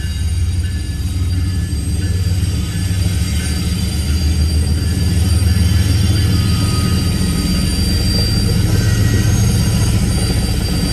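BNSF diesel freight locomotives (GE ES44C4s and a C44-9W) passing close by over a grade crossing, their engines giving a steady low rumble. The loaded flatcars behind them follow with rolling wheel-on-rail noise.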